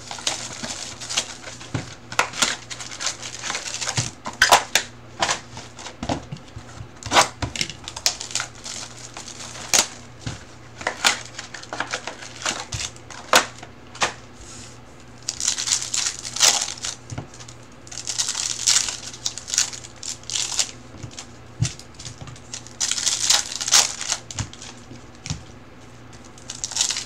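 Foil-wrapped Bowman Chrome baseball card packs being handled and torn open: crinkling wrappers in several stretches of a second or two, among many sharp clicks and taps as packs and cards are shuffled.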